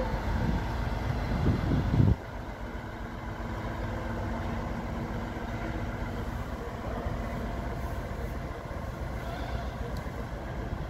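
DB Cargo class 6400 diesel-electric locomotive's engine running with a steady low rumble as it moves slowly along the track. A louder, rougher rumble in the first two seconds cuts off abruptly.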